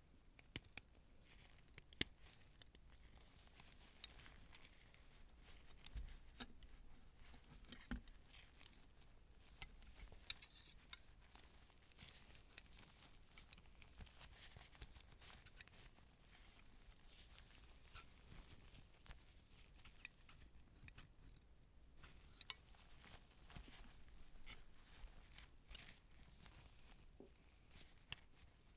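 Quiet, irregular small clicks and ticks, a few sharper than the rest, over faint rustling and crinkling: surgical instruments and supplies being handled.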